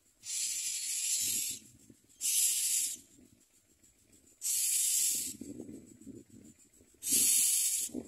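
Common myna nestlings giving harsh hissing begging calls: four rasping bursts, each under a second to about a second long, roughly every two seconds.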